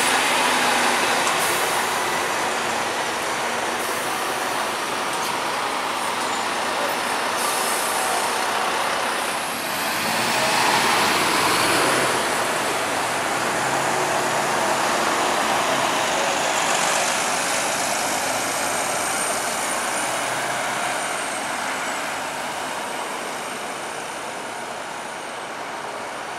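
Volvo B9TL double-decker bus pulling away from the stop and driving off, its engine and road noise mixed with surrounding traffic. It is loudest as it passes close about ten seconds in, then fades as it goes down the road.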